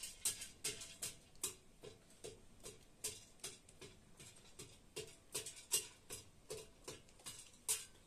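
A metal utensil knocking and clinking against the inside of a stainless steel jug as it is stirred briskly, a steady ticking about two to three times a second.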